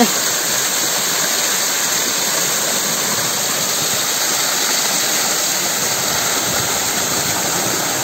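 Small artificial waterfall pouring steadily into a shallow pool, splashing down over a person standing under it.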